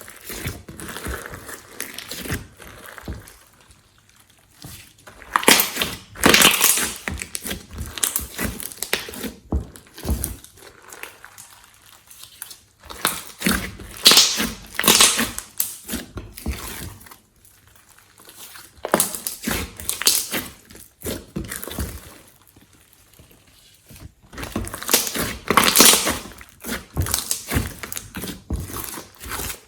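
Hands kneading and squishing glossy slime as things are worked into it, in bouts of a few seconds with quieter handling between.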